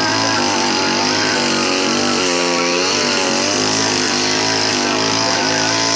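Petrol brush cutter's engine running at high speed, its pitch wavering and dipping briefly a little over two seconds in before rising again.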